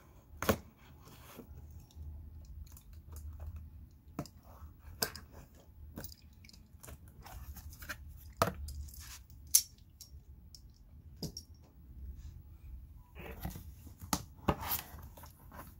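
Cardboard box being opened by hand: scattered sharp snaps and clicks with tearing and scraping of cardboard as the flaps are worked open.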